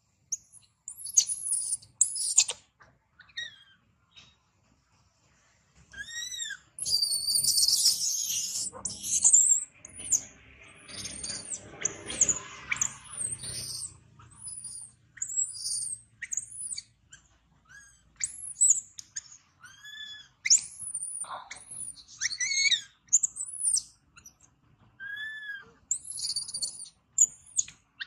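Infant long-tailed macaques crying in distress: repeated short, high-pitched squeals that each rise and fall, with a denser burst of harsh screaming about seven to nine seconds in.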